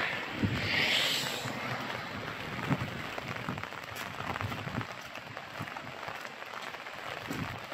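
Running water rushing and splashing: a steady, even noise with small irregular spatters, a little brighter in the first second and a half.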